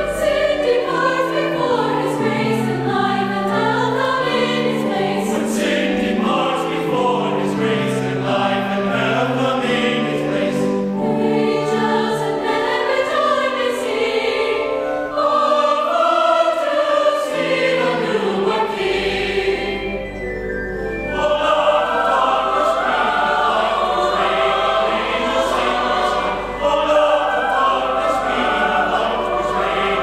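Mixed choir of men's and women's voices singing a choral piece in several-part harmony, with sustained chords that shift from note to note and a short lull about halfway through.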